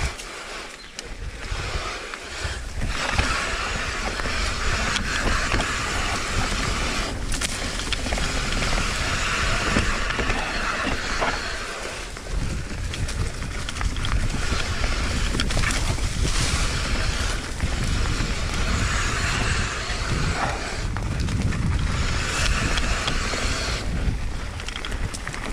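Mountain bike being ridden on a dirt trail: wind rushing over the microphone and tyres rolling over the ground, with many short knocks and rattles from the bike over rough terrain.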